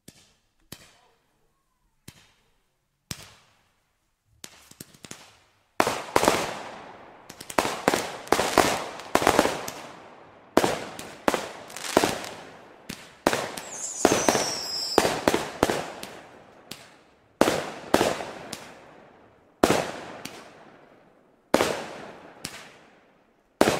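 Consumer battery fireworks (cakes) firing: a few scattered shots at first, then from about six seconds in a rapid run of launch reports and aerial bursts. A falling whistle sounds near the middle.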